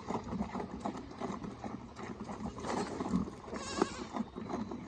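Farmyard goats bleating now and then, one short call about three and a half seconds in, among scattered small knocks and rustles.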